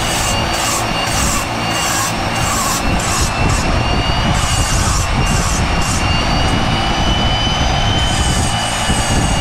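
Flexible-shaft rotary tool running with a steady high whine while its burr grinds cork, the rasping hiss of the bit biting the cork coming in repeated short strokes and pausing for a couple of seconds past the middle.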